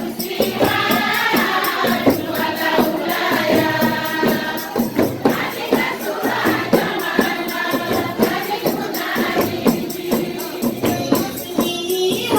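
A group of voices singing together over fast, steady hand percussion with jingling, tambourine-like drums.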